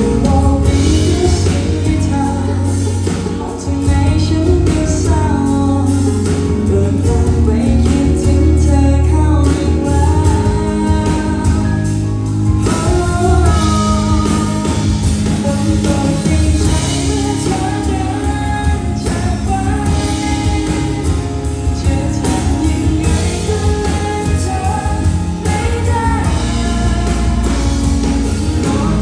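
Live band music: a woman singing a Thai-language song into a microphone, backed by electric guitar and keyboard.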